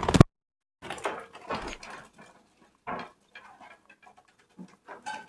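Budgerigar wings flapping hard in a loud, rapid burst at the very start, followed by short scratchy budgie chirps and chatter with brief further rustles of wings and feathers.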